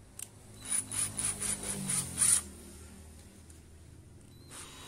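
Keyless chuck of a Mollar CDID20500 cordless drill twisted by hand to open the jaws for a bit, about seven quick turns within a second and a half, each a short gritty rub, with one more brief rub near the end.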